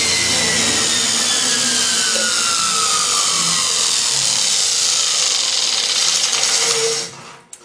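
Wood shaper spindle carrying a neodymium-magnet wheel coasting down after the motor is switched off: a steady whir with a whine that falls steadily in pitch as the wheel slows, cutting off about seven seconds in.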